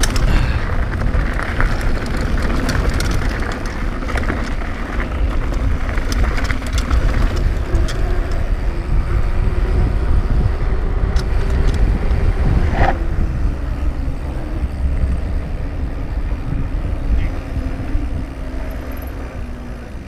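Cannondale Claymore mountain bike riding fast: tyres rolling over dirt and then pavement, the frame and parts rattling with scattered clicks, and heavy wind rumble on the microphone. It gets quieter over the last few seconds.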